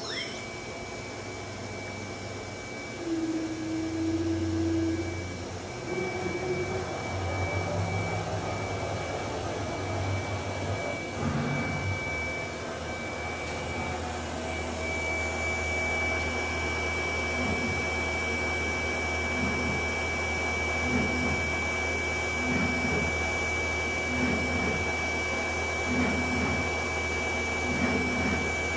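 Freedom Machine Tool Patriot CNC router spindle spinning up and then holding a steady high-pitched whine, over a low machine hum. Lower motor tones shift as the gantry moves during the first part, and in the second half a low pulse repeats about once a second.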